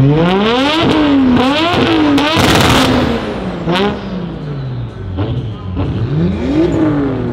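Tuned performance car engine revved in quick blips, its pitch climbing and dropping again several times. A short loud burst of noise comes about two and a half seconds in, with a sharp crack a little after, and one more rev rises and falls near the end.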